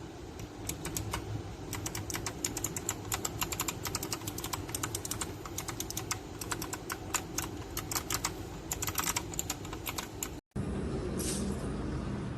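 Typing on a mechanical keyboard fitted with PBT pudding keycaps: a fast, irregular run of keystroke clacks. The typing stops about ten seconds in, after a brief cut, leaving a low background rumble with a couple of stray clicks.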